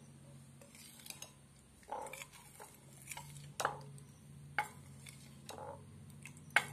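Steel spoon stirring thin rice-flour batter in a bowl, clinking and scraping against the bowl about once a second, with a sharp clink near the end. A faint steady low hum runs underneath.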